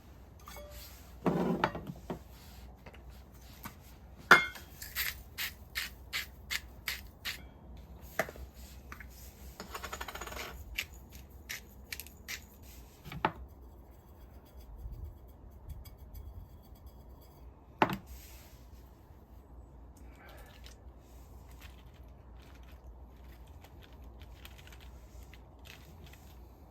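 Small hard objects clinking and knocking as they are handled, in scattered strikes. The loudest strike comes about four seconds in, followed by a quick run of clicks. A short rattling stretch comes about ten seconds in, and there are a few isolated knocks before it settles to faint ticks.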